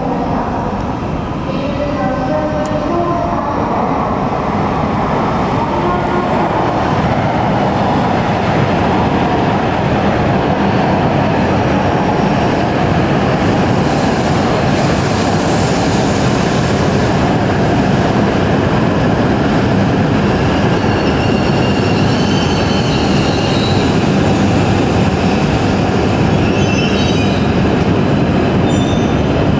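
An H5 series and E6 series Shinkansen set, coupled together, pulls into the platform with a steady rumble of wheels and running gear that slowly grows. High squeals come in over the last several seconds as the train slows.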